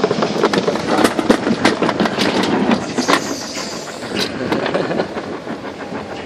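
Toboggan ride sled rattling and clacking along its track, with many irregular sharp clicks.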